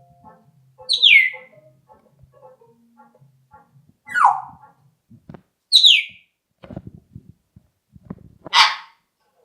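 African grey parrot whistling: three short whistles that each slide down in pitch, then a harsher, rougher call near the end.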